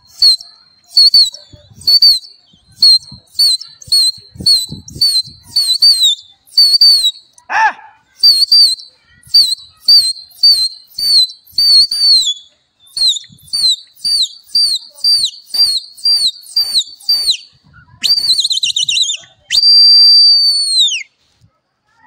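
A pigeon flyer's loud, high whistling, about two short whistles a second, each ending in a quick downward flick, used to keep a released pigeon flock circling in the air. Near the end come a warbling trill and one long whistle that drops away at its close, and about seven and a half seconds in there is a brief shouted call.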